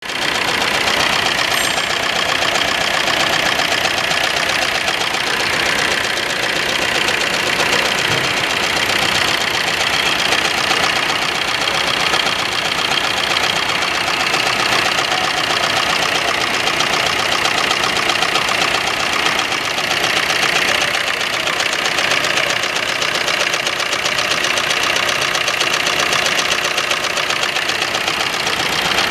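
Maruti Suzuki Ertiga's diesel engine running steadily with a knocking clatter, a misfire according to the owner.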